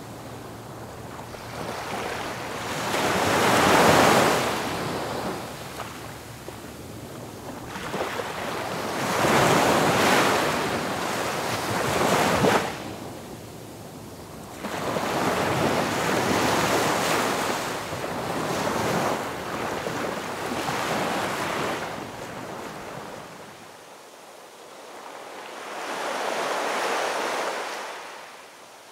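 Ocean waves breaking and washing in, swelling and fading in surges every few seconds, with some wind.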